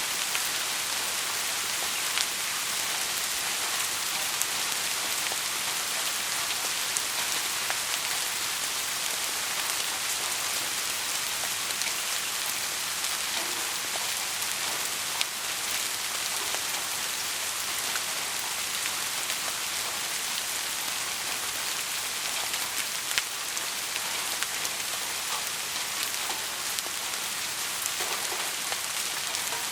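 Heavy rain falling steadily, a dense even hiss with scattered sharper drop ticks.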